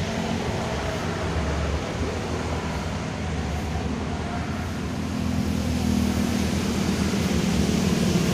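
A steady low engine drone with a faint hum, growing louder about five seconds in.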